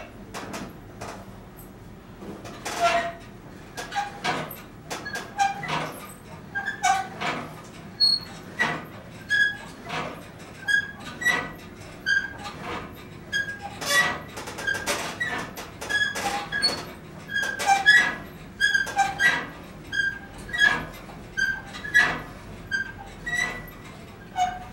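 Home gym cable machine squeaking and clicking with each pull and return of a repetition, in short squeaks about once a second.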